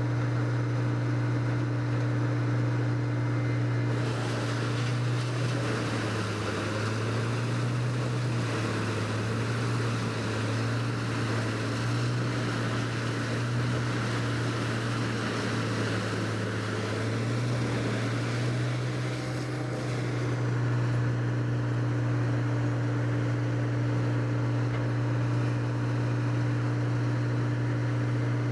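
Large diesel engine of a wood-processing machine running hard. Its pitch sags and wavers for several seconds as it takes load, then settles back to a steady drone.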